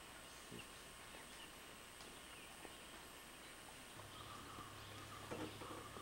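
Near silence: faint outdoor background hiss with a few small ticks, joined about four seconds in by a low steady hum.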